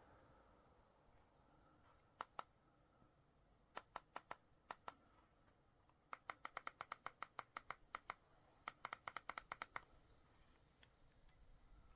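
Faint short clicks in a quiet room: a pair about two seconds in, a few more around four to five seconds, then rapid runs of about seven clicks a second from about six to ten seconds.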